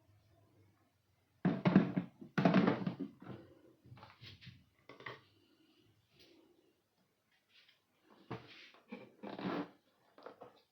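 A series of knocks and thuds from items being handled and set down, the two loudest close together about one and a half and two and a half seconds in, then a few lighter knocks.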